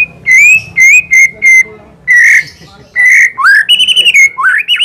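White-rumped shama (murai batu) singing loud, clear whistled notes in quick separate phrases, with rising slurred whistles and a fast trill about three-quarters of the way through. The phrase is heard as canary-style song learned from a tutor recording.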